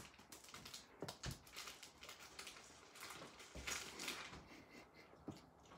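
Faint handling sounds at a kitchen counter: scattered light clicks and knocks, with a short stretch of rustling and clatter about three and a half seconds in.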